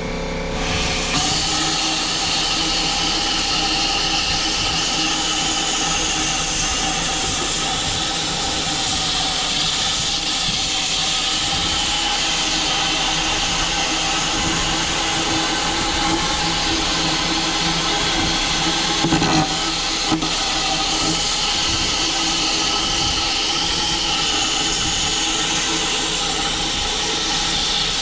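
A loud, steady hiss from a metal-cutting or grinding tool, which starts about a second in and carries on unbroken over a steady machine hum, with a brief louder spot about two-thirds of the way through.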